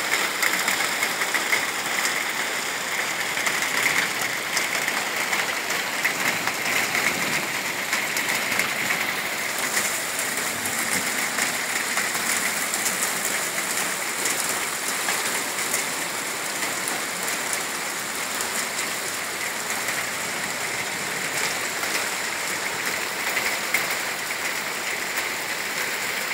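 Heavy thunderstorm downpour pouring steadily onto a flooded street, an even hiss of rain hitting standing water.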